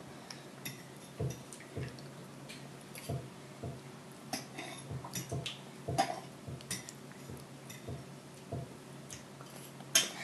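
Faint, irregular clicks and soft taps, one or two a second, of a toddler eating in a high chair: mouth sounds while chewing and hands on the plastic tray, over a low steady hum.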